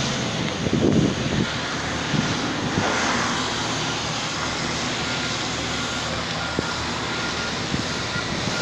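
Road-construction machinery running with a steady engine noise, and a reversing alarm sounding a series of short beeps from about five seconds in.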